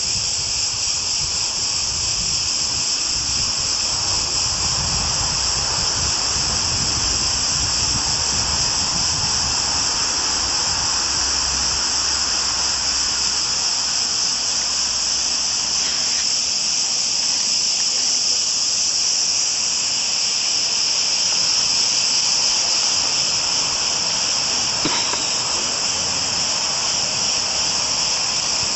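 Cicadas in the trees singing in a loud, steady, unbroken chorus.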